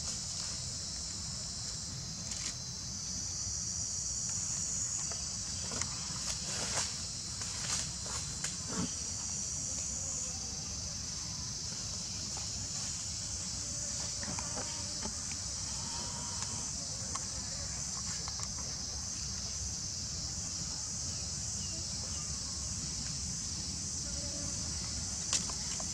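Steady high-pitched chorus of insects, with a few light clicks and rustles between about six and nine seconds in.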